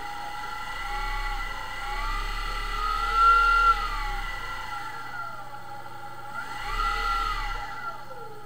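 Car alternator run as an electric motor from an electronic controller: its whine rises in pitch as it speeds up and falls as it slows, twice, the first run-up longer and louder.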